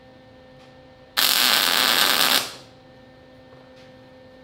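MIG welder laying a single tack weld: a loud arc crackle starts suddenly about a second in, lasts just over a second and fades out, over a steady electrical hum.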